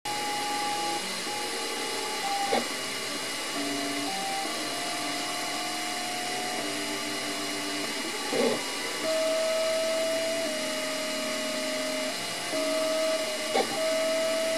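Ultimaker 2 3D printer running a print: its stepper motors whine in steady tones that jump to new pitches every second or two as the print head changes moves, over a constant high hum. There is a short, louder blip about every five seconds.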